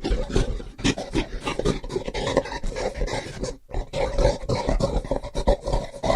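Gorilla vocalising in a rapid, irregular run of short grunts and breaths, breaking off for a moment a little past halfway.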